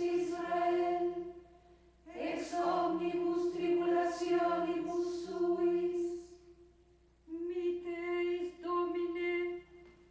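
A women's choir of nuns chanting Latin in unison, held on one reciting note, in phrases broken by two short pauses.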